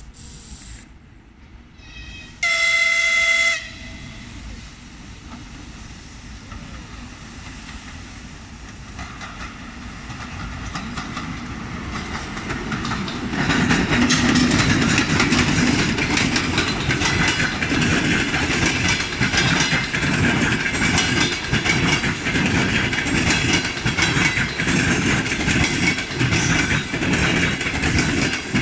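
TEP70BS diesel locomotive with a passenger train sounds its horn once, a single steady tone about a second long, two to three seconds in. The train then draws near and passes close, the locomotive running and the coaches' wheels clattering over the rail joints, loud and steady through the second half.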